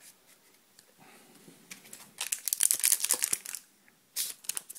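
Foil Pokémon booster-pack wrapper crinkling as it is handled, in two spells: a longer one starting about two seconds in, and a short one near the end.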